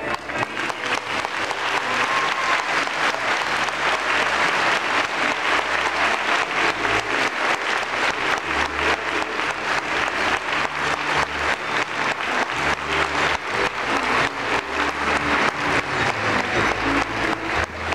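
Congregation applauding with steady, fast clapping over music with a low bass line.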